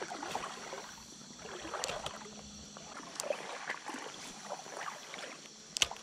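Outdoor ambience at a shallow creek: soft water and rustling with scattered small clicks over a thin steady high whine, then one sharp click near the end.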